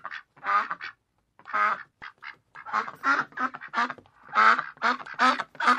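A rapid run of about a dozen short duck quacks with a brief pause about a second in, dubbed in as a comic sound effect.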